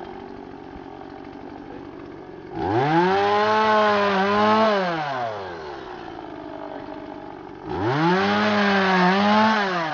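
Stihl MiniBoss two-stroke chainsaw idling, then revved to full throttle twice: about two and a half seconds in, and again near the end. Each rev is held for about two seconds before the engine winds back down to idle.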